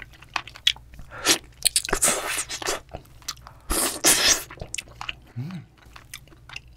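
Close-miked eating: chewing and sucking the meat off yellowtail fish bones from a spicy stew, with many wet mouth clicks and a few longer sucking noises. A short closed-mouth hum comes about five and a half seconds in.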